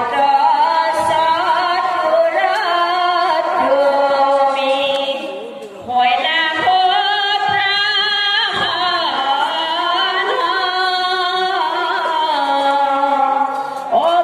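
A verse sung in an Assamese bhaona performance: a voice singing long, wavering held notes in a chant-like style, breaking off briefly about six seconds in and then carrying on.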